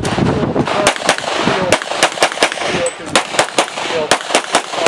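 A Springfield XDm pistol in .40 S&W fires rapid strings of shots, about a dozen, mostly in quick pairs, beginning about a second in.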